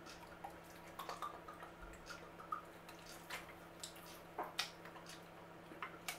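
Olive oil poured from a glass bottle onto a whole sea bass in a glass baking dish and worked over the skin by hand: faint, irregular wet drips, squishes and small clicks.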